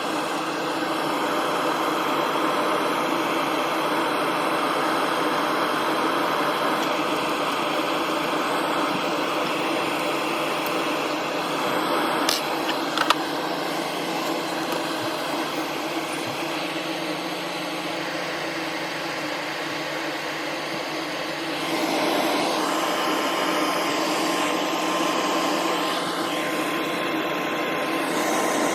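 Laser back-glass removal machine running, a steady machine whir while it burns the glue off a phone's back. There are two light clicks about halfway through, and the whir grows a little louder later on.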